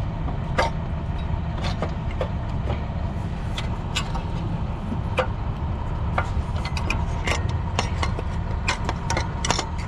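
Scattered light clicks and taps of the thermostat housing and hand tools knocking against engine parts as the housing is worked into place in the engine bay, over a steady low rumble.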